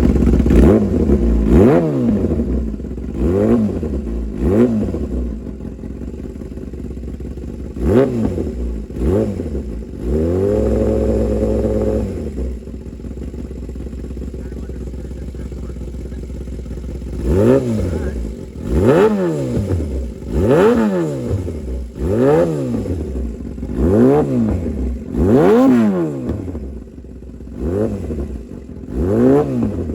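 2016 Kawasaki ZX-10R's inline-four engine through a full titanium SC Project exhaust, revved from idle in about a dozen sharp blips that rise and fall. There is one rev held briefly about ten seconds in, and a few seconds of steady idle in the middle.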